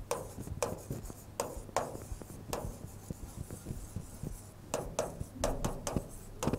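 Chalk writing on a green chalkboard: a run of short scratching strokes and taps, with a pause of about two seconds in the middle and a quicker run of strokes near the end.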